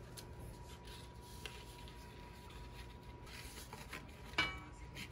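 Soft rustling and scraping of paper and a kraft cardboard jewelry card being handled and folded, with one sharp tap about four seconds in.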